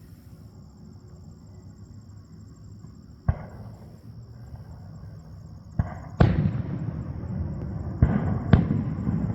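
Aerial firework shells bursting: five sharp booms in the second half, the last four close together in two pairs, each followed by a long rolling echo that builds into a continuous rumble.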